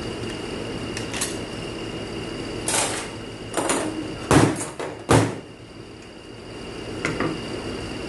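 Metal automatic-transmission parts clinking and clunking as they are handled and set down during a teardown: a handful of short knocks, the two loudest a little past the middle, over a steady background hum.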